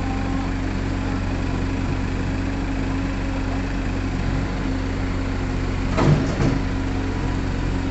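JCB mini excavator's diesel engine running steadily with a low hum while it lifts itself on its boom onto a truck, with two quick knocks about six seconds in.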